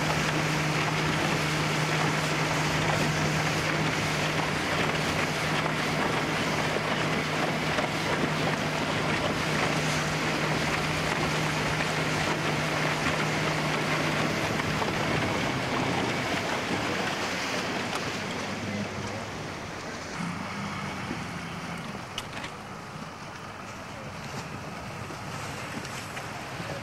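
A RIB's outboard motor running at a steady note under heavy wind noise on the microphone and rushing water. About fifteen seconds in the engine note fades, leaving wind and water, a little quieter.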